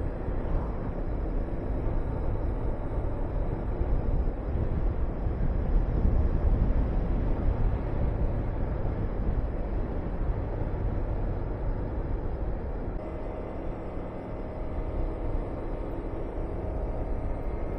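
Wind rushing over the microphone on a moving motorcycle, with the Honda VTR250's V-twin engine running underneath. The wind noise is strongest around six to eight seconds in; about thirteen seconds in it eases and the engine's steady note comes through more clearly.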